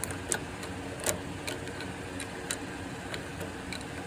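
Scattered light metallic clicks and taps as the drill press chuck and its jaws are worked by hand, over a steady low hum.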